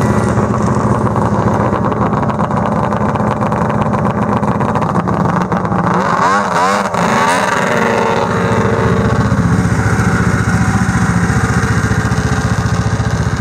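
Snowmobile engine running steadily close by, its pitch rising and falling a few times about halfway through as it is revved.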